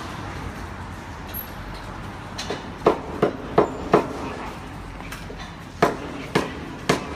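Sharp knocks over a steady background rumble: four quick ones about a third of a second apart around the middle, then three more about half a second apart near the end.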